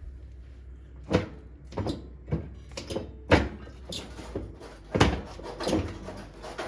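Firewood logs knocking and clunking as they are laid into a wood stove's firebox: about eight irregular knocks over five seconds.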